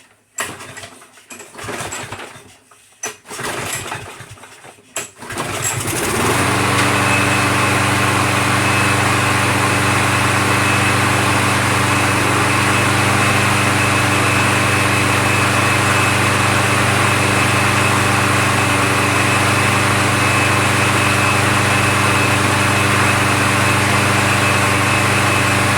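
Craftsman lawn mower's small engine being started: a few seconds of knocks and rattles, then it catches about six seconds in and runs at a steady, even speed until it shuts off at the end. The steady note without hunting shows the surging cured by its new carburetor.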